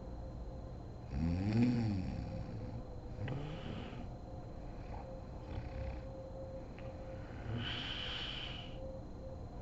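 A sleeping woman snoring. A loud, pitched snore comes about a second in and a weaker one around three seconds, then a hissing breath near eight seconds.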